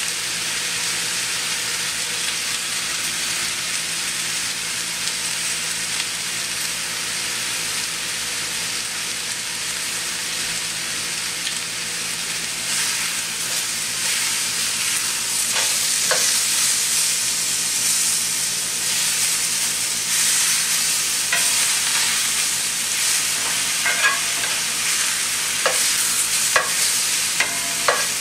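New York strip steaks sizzling in a hot pan with collard greens, a steady frying hiss. From about halfway in, metal tongs click against the pan several times as the steaks are turned.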